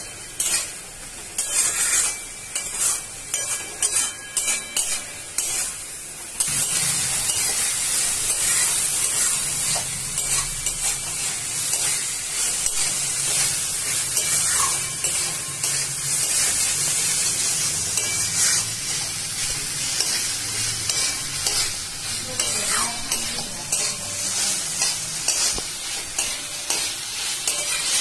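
Spatula stirring and scraping an onion-tomato masala around a metal kadai, over frying sizzle. The stirring comes in separate strokes at first; about six seconds in a steady high sizzle sets in and the stirring goes on over it. The masala is being fried down until its water dries off and the oil separates.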